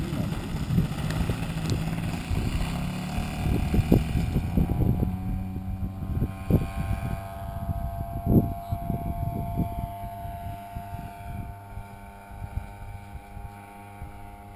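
Engine of a radio-controlled model tow plane running at full power on takeoff, then a steady drone that fades as the plane climbs away. A few thumps of wind on the microphone.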